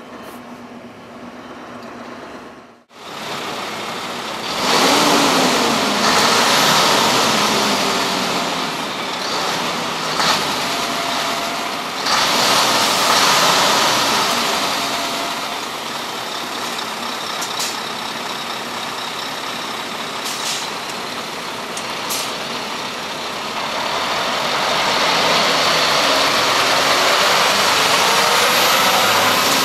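A Scania V8 heavy truck's engine is running while the truck manoeuvres and drives slowly past. The first few seconds are a quieter engine hum heard inside the cab, which cuts off suddenly. After that comes a loud outdoor run of engine and air noise that swells and eases as the truck moves, with a few short, sharp sounds in between.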